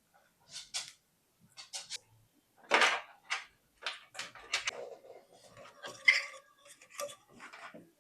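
Hard plastic and metal parts of PC case fans clicking and clinking as they are handled and fitted into a computer case: a string of irregular sharp knocks, the loudest about three seconds in.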